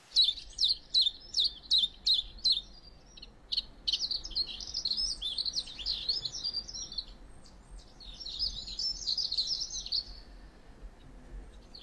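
Small songbirds calling: a run of about eight short, high, downward-slurred notes at roughly three a second, then two stretches of rapid, high twittering.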